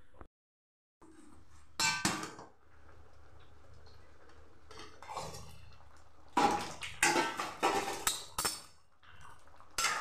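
Metal ladle and steel lid clinking against an aluminium kadai of dal: one sharp clank about two seconds in, then a run of knocks and scrapes in the second half as the dal and greens are stirred.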